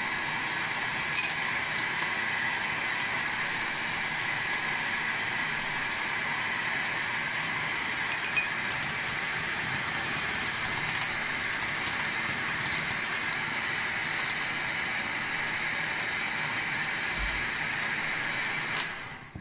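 Electric hand mixer running steadily while its beaters whip egg yolks in a glass bowl, with a few sharp clinks of the beaters against the glass. The motor cuts off suddenly near the end.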